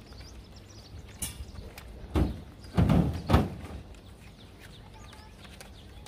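A few dull thumps about two to three and a half seconds in, with birds chirping faintly in the background.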